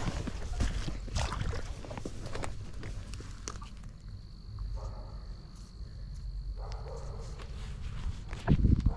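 Scattered knocks and rustles of handling and footsteps, with a low rumble on the microphone. A steady high insect note joins about four seconds in, and a louder thump comes near the end.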